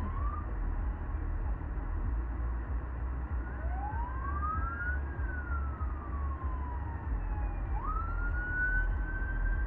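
Police car siren wailing in slow sweeps, rising and falling in pitch, with a quick rise about eight seconds in. Under it runs a low steady rumble.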